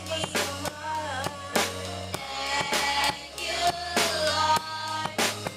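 Live gospel music: a drum kit keeping a steady beat over held bass notes, with a voice singing over it.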